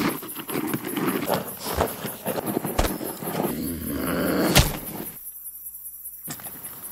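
Boots scuffing and stepping on gravelly dirt, with a few sharp thumps; the loudest thump comes about four and a half seconds in. The sound cuts out almost completely for about a second near the end.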